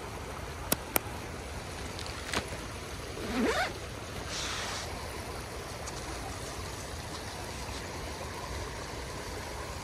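Shallow creek water running steadily over rocks, with a few sharp clicks and a brief rustle in the first seconds.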